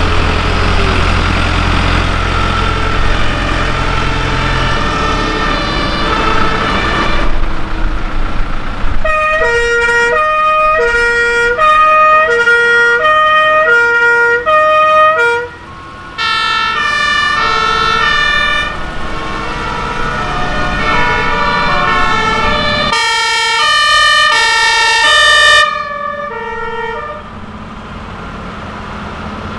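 A heavy old fire truck engine (Robur LO) runs low as the trucks pass. Then, about nine seconds in, a German two-tone fire-brigade siren (Martinshorn) alternates between a low and a high note for about six seconds. Other two-tone sirens at different pitches follow one after another, the last and loudest cutting off a few seconds before the end.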